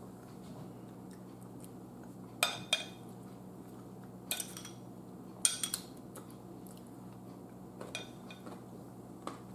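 A metal fork clinking against ceramic bowls: several short, sharp clinks spread a second or so apart, over a faint steady low hum.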